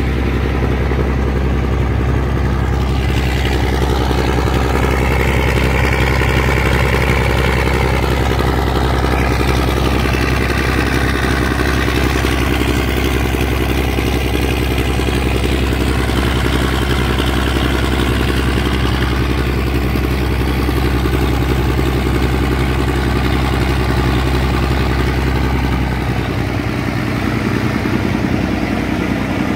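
The pontoon ferry's engine running steadily with a deep, even hum. Its note changes about 26 seconds in.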